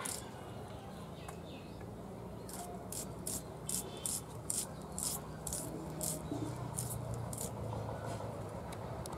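Small red onion being peeled and trimmed by hand, its dry papery skin giving a series of short crisp scrapes, about one or two a second, over a low steady hum.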